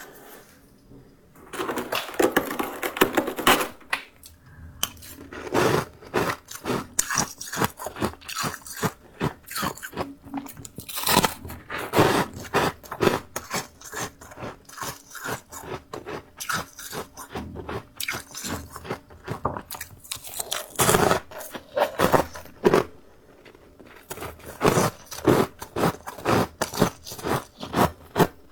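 Freezer frost ('snow ice') bitten and chewed close to the microphone: clusters of crisp, crackly crunches separated by short pauses.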